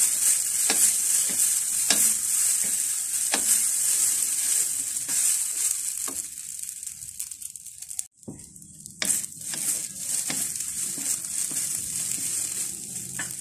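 Egg noodles sizzling as they dry-fry in a lightly oiled pan, with a wooden spatula scraping and tossing them in repeated strokes. The noodles are being toasted this way until cooked through. The sound drops out briefly about eight seconds in, then the sizzling and stirring resume.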